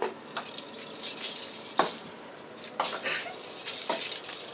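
Kittens at play, with irregular sharp clicks and jingling rattles.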